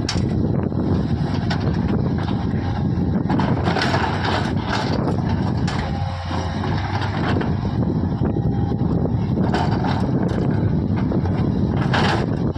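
Diesel engine of a JCB earthmoving machine running steadily, with frequent short clanks and knocks of the working machinery over it.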